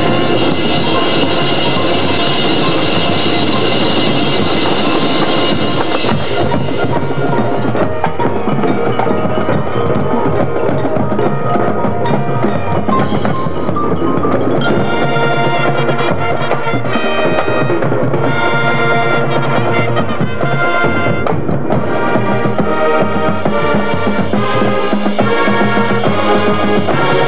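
High school marching band playing its competition show: a loud full-band passage, bright with brass and cymbals, for about the first six seconds, then a lighter passage carried by the percussion, with mallet keyboards and drums.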